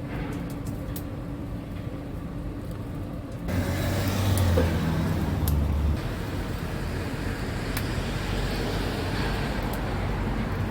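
Motor vehicle engine and road noise: a steady low hum that turns suddenly louder about three and a half seconds in, with a deep engine drone that drops away near six seconds, leaving a steady traffic wash.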